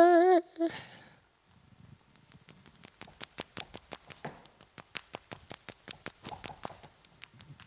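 A sung note ends in the first second, then comes a quiet run of light, irregular clicks or taps, about three to five a second.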